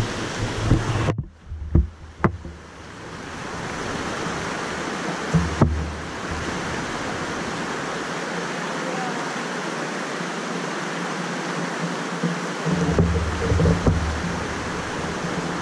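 Floodwater rushing steadily across a concrete road crossing, heard close up. In the first few seconds there are several knocks and a brief muffled dropout as the camera is set down on the wet slab, and another knock about five and a half seconds in.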